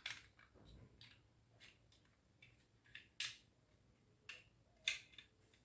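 Faint, scattered clicks and taps of small plastic toys being handled, about seven in all, the sharpest a little after three seconds in and near five seconds.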